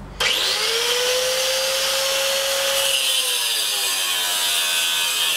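Corded electric angle grinder spinning up with a rising whine, then cutting steel rod; its pitch sags under load for a couple of seconds in the middle, then recovers.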